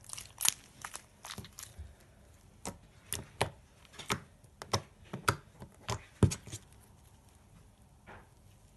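Clear glue slime being kneaded and pressed by hand, giving sharp, irregular clicks and pops. They come thick for about six seconds, then die away.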